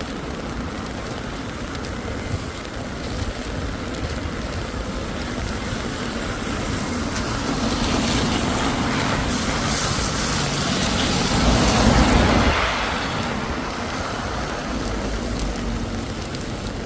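Steady hiss of heavy rain and traffic on a wet road, with one vehicle swelling past, loudest about twelve seconds in before fading back.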